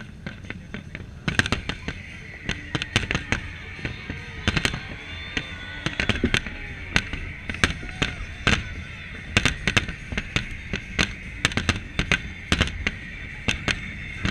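Aerial fireworks shells bursting in rapid, irregular volleys: dozens of sharp bangs, several a second, over a constant crackle and rumble.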